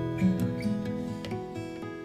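Background music of plucked acoustic guitar notes, fading out.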